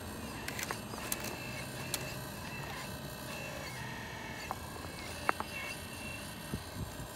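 Remote-control model excavator working its boom and grapple: a steady high motor whine with a few sharp mechanical clicks, the loudest about five seconds in.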